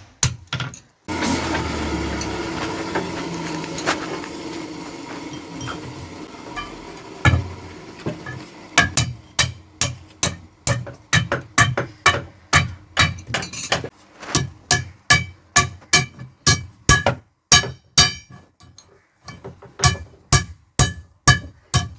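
Blacksmith's hammer striking metal on an anvil while forging an axe head: a few blows at the start, then a steady, ringing rhythm of about two strikes a second from about a third of the way in. Between them, several seconds of a steady rushing noise that slowly fades.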